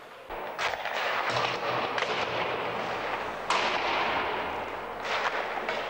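Hockey pucks and sticks banging against the boards in an indoor ice rink: several sharp bangs that echo through the hall, the loudest about three and a half seconds in.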